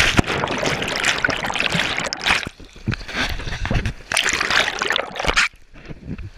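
Creek rapids rushing and splashing close by, in uneven loud surges, dropping off sharply about five and a half seconds in.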